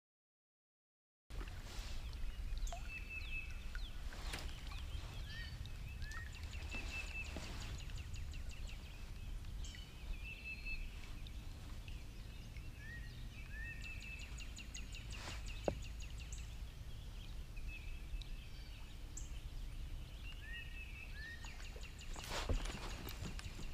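Songbirds calling from the wooded shore: repeated short, rapid trills and a few quick slurred chirps, faint over a low steady rumble. The sound starts after about a second of dead silence, and there is a single sharp tick about two-thirds of the way through.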